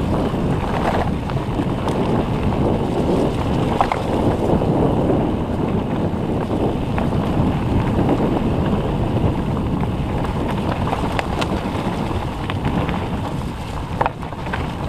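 Mountain bike rolling fast down a dirt forest trail: steady tyre rumble over the ground, with a few sharp clicks and knocks from the bike, and wind buffeting the microphone.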